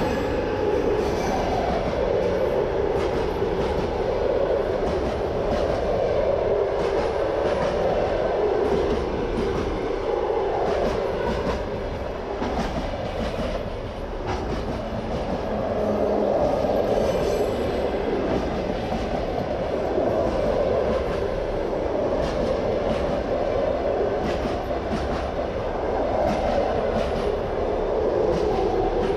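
Electric-hauled passenger train passing close at speed: the coaches' wheels click over the rail joints in an even rhythm over a steady rolling rumble.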